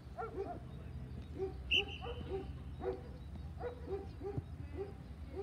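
A dog barking over and over, about two short barks a second. Just under two seconds in there is a single sharp knock with a brief high tone after it.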